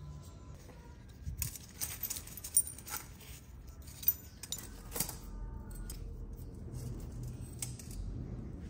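Small metal parts or tools clinking and rattling as they are handled, a string of sharp clicks over a few seconds, then a low steady hum.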